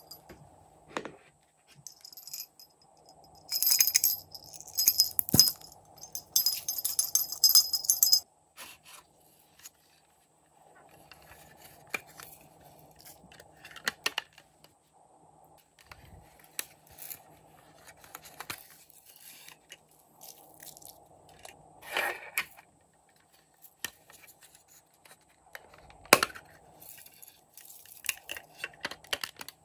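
A small jingle bell shaken in bursts, then hard plastic handling: light clicks and scrapes of a candy-shaped plastic case, with two sharp snaps in the second half.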